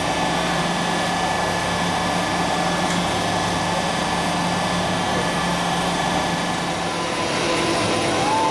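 Steady mechanical drone of fairground machinery, with a constant low hum and a faint high whine over a broad rushing noise.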